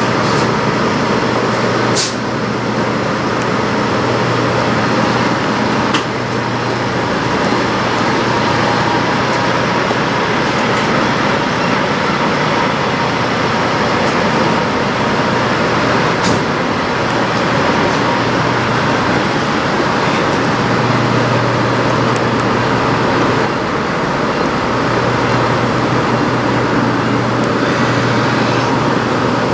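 1999 Freightliner semi truck's diesel engine idling steadily, with a few sharp clicks in the first several seconds.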